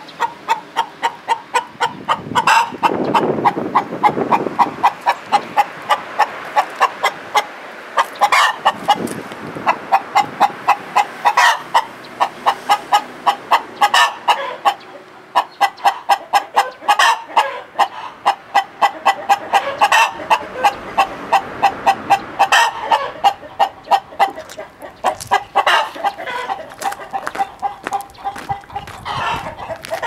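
Nagoya Cochin hens cackling, a hen's egg-laying cackle taken up by the flock in a chain. A fast run of sharp clucks is broken every few seconds by a longer drawn-out call.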